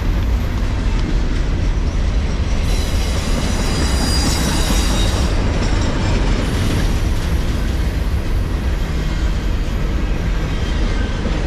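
Manifest freight train cars rolling past at close range: a steady rumble of steel wheels on rail, with a high wheel squeal rising over it from about three to five seconds in.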